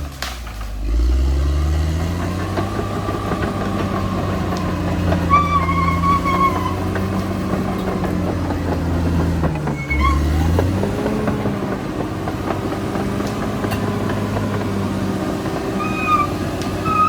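Caterpillar D6R XL bulldozer's diesel engine running under load, its pitch rising about a second in, dipping near the middle and climbing again. A high-pitched wavering squeal comes and goes over the engine.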